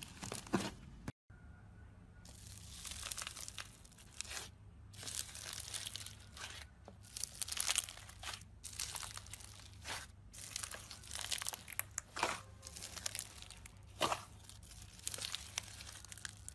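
Hands squeezing and pressing slime, at first a soft pastel slime, then, after a brief dropout, a large tub of clear, bubbly slime. The slime gives a run of short, uneven squishing and crackling bursts as the trapped air is pushed out.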